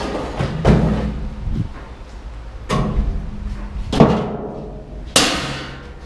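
Pieces of stainless steel scrap thrown into a scrapyard bin: about five loud metal clangs, each ringing on briefly.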